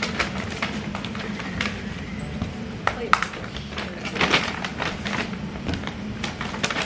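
Rustling and crackling of a shopping bag as hands rummage inside it, in short irregular crackles.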